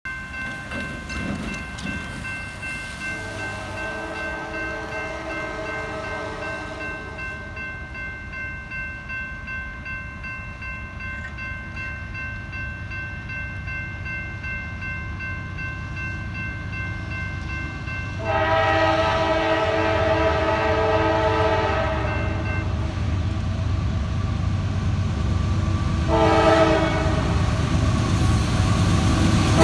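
Railroad crossing bell ringing steadily as an approaching CSX freight locomotive sounds its air horn in the grade-crossing pattern: a long blast a few seconds in, a second long blast after about fifteen seconds, then a short one near the end. The train's rumble grows louder as it nears the crossing.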